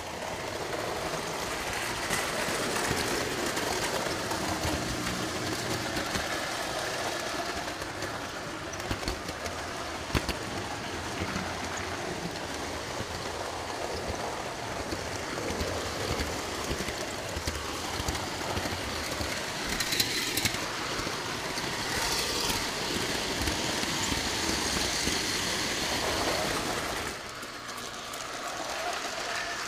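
O-gauge three-rail model train running on metal track: a steady clattering rumble of wheels and motor with occasional sharp clicks, becoming quieter a couple of seconds before the end.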